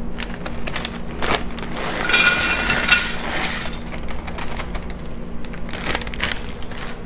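Fritos corn chips poured from their crinkly plastic bag into a ceramic slow-cooker crock. The bag crackles, and a dense rush of chips clatters into the crock about two seconds in, with a few more crackles near the end.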